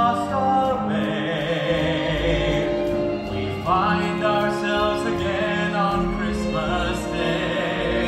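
A song from a stage musical: voices holding sung notes with vibrato over a sustained instrumental accompaniment, with a new phrase entering a little before halfway.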